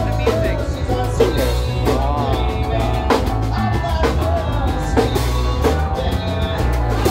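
Live rock band playing on an open deck: drum kit keeping a steady beat under electric guitars, bass and keyboard.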